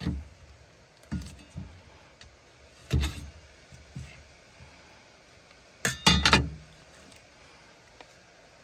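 Cleaver chopping meat on a wooden cutting board laid on a truck's metal tailgate: single knocks every second or so, then a quick run of three or four harder chops about six seconds in, the loudest of the lot.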